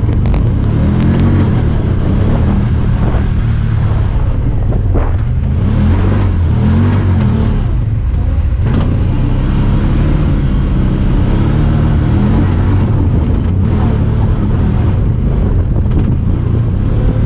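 Honda Talon 1000R side-by-side's parallel-twin engine running while driving, its pitch repeatedly rising and falling as it speeds up and eases off, with a few sharp knocks along the way.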